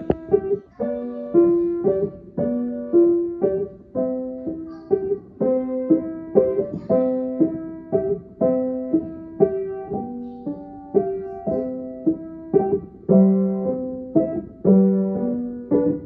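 Background piano music: a gentle piece of evenly paced notes, about two a second, in repeating broken chords.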